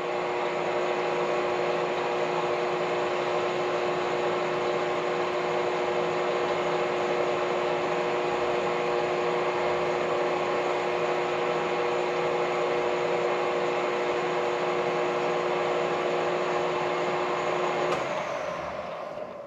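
Metal lathe running under power with the lead screw engaged, taking a threading pass on a rifle barrel's muzzle at 28 threads per inch: a steady machine hum with a couple of steady tones. It winds down near the end as the pass is stopped.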